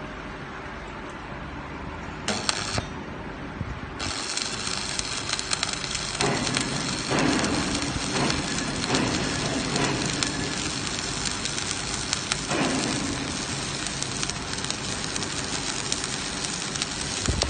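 Electric arc welding: the arc's steady crackling sizzle, which starts about four seconds in after a short burst of it earlier.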